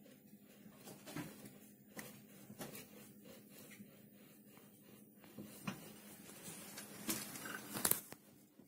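Faint scattered taps and clicks of handling over a low steady hum, with two louder knocks near the end.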